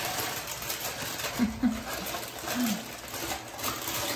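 Plastic P-trap drain parts being handled and knocked together, giving a few light clicks and clatters.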